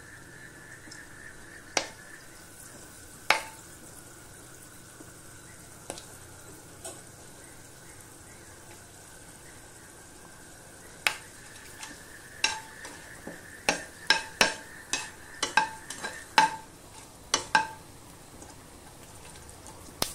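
Whole spices (cinnamon, cardamom, cloves, bay leaves) frying in hot oil in an aluminium pressure cooker: a faint steady sizzle with occasional sharp pops, becoming a quick run of pops and crackles over the last several seconds as the spices crackle in the oil.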